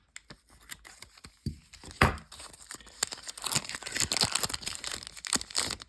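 Foil wrapper of a Magic: The Gathering booster pack crinkling and being torn open, with a sharp snap about two seconds in.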